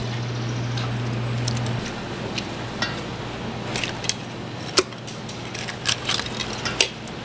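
Knife scraping and clicking against a milkfish and the chopping board: a string of short, sharp metallic clicks over a steady low hum that drops about two seconds in.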